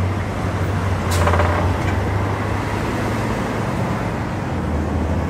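Steady low rumble of road traffic, with a brief hiss about a second in.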